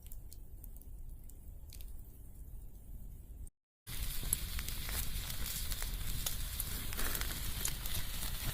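Wood fire crackling with many small pops, louder after a brief break about four seconds in; before the break, only a few faint scattered clicks.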